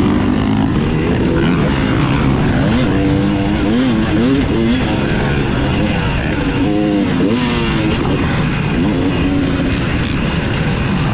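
Dirt bike engine at full race pace, heard on board: its pitch climbs under throttle and drops again several times as the rider accelerates, shifts and backs off. A steady rushing noise lies underneath.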